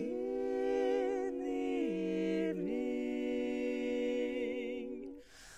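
Women's barbershop quartet singing a cappella, holding a long sustained four-part chord with vibrato while the lowest voice steps down and back about two seconds in. The chord fades out near the end.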